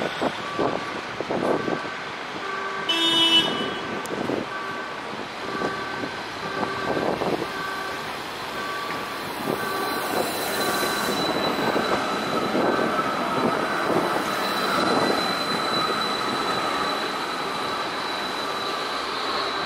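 Low-floor tram approaching along street tracks, its running noise and a faint high whine growing louder from about halfway. Before that, a short two-note electronic beep repeats about one and a half times a second, and a brief toot sounds about three seconds in.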